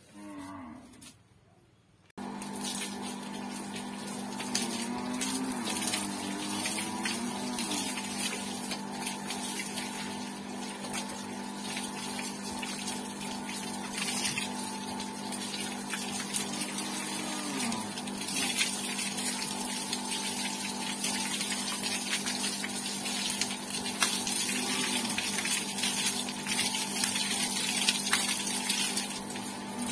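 An electric water pump switches on abruptly about two seconds in and runs with a steady hum. Water from a garden hose hisses and splashes over a motorcycle and the wet floor.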